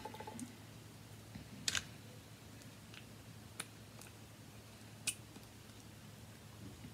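A few small, sharp clicks and taps from handling a small plastic perfume sample vial, the loudest about two seconds in.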